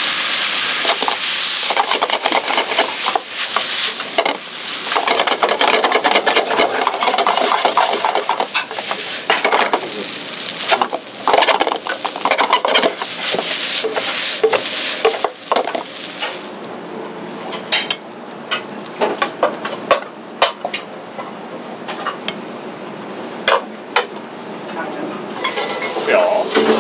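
Beef and butter sizzling in a frying pan while being stirred, the utensil clicking and scraping against the pan. The sizzle thins out about sixteen seconds in, leaving mostly scattered clicks, and swells again near the end.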